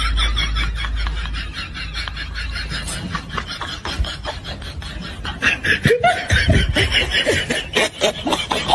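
Laughter: a fast, unbroken run of short repeated bursts that cuts off abruptly at the end.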